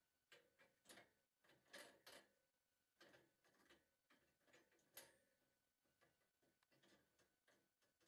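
Faint, irregular clicks and light knocks of a dishwasher's plastic-coated wire basket being handled, about two or three a second.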